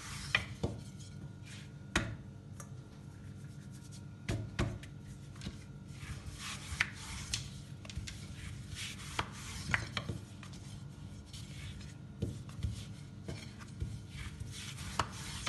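Long thin wooden rolling pin (oklava) rolling and rubbing thin yufka dough over a granite countertop, with irregular light knocks of wood on stone every second or two. A faint steady hum underneath.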